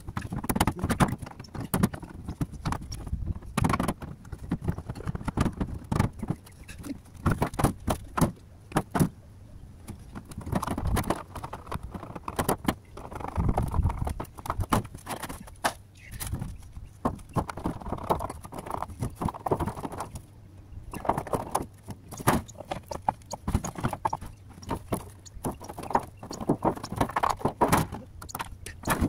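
Irregular knocks, clacks and clinks of clay roof tiles and old metal flashing being pulled up, moved and stepped on, with occasional scraping between the knocks.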